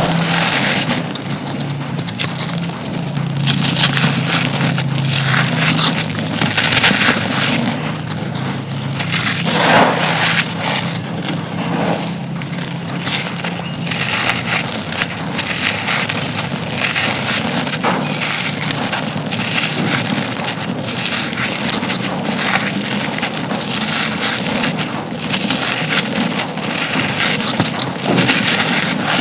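Dry black concrete pieces being crushed and crumbled, a dense, continuous crunching and crackling of breaking fragments.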